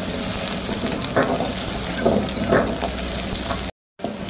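Sliced onions and green chillies sizzling in hot oil in a wok, with a spatula scraping and stirring them several times. The sound cuts out briefly near the end.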